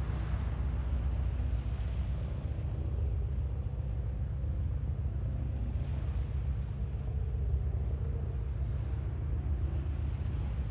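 A steady low rumble with a fainter hiss above it, unbroken and without distinct events.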